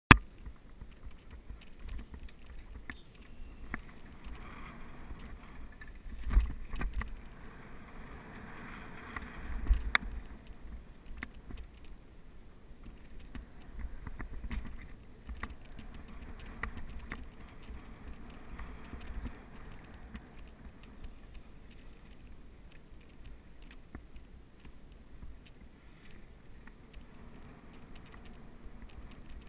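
Movement noise of a camera travelling fast along a dirt forest trail: a low rumble of wind and jostling with frequent small clicks and rattles, and two heavier knocks about six and ten seconds in.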